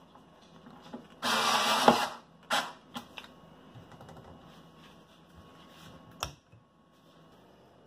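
Things being moved about on a wooden kitchen cabinet shelf: a loud rustle about a second in ending in a knock, then a few lighter knocks. About six seconds in, a single sharp knock as the cabinet door is shut.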